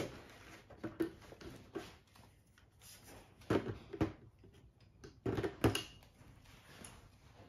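Standing fan's upright pole being fitted and twisted into its round base: handling noises and several knocks and clunks, the loudest two pairs about halfway through and again a little later.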